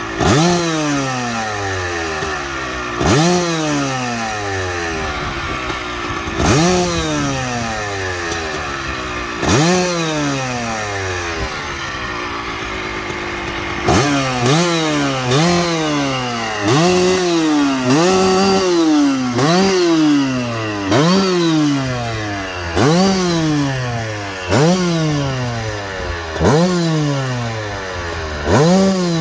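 Kawasaki KX250 two-stroke single-cylinder engine being revved in repeated throttle blips, each a sharp rise in pitch that falls back toward idle. The blips come a few seconds apart at first, then about one a second in the second half. The engine is warming up after a cold start in winter.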